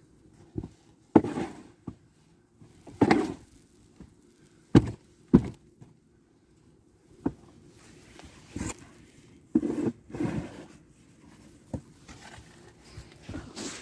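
Snow shovel working heavy, wet snow: irregular scrapes and thumps as the blade digs, scrapes and dumps loads, some strokes longer and scraping, others short knocks.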